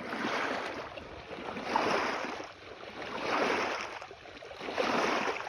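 Small waves washing in, a noisy wash that swells and fades about every one and a half seconds.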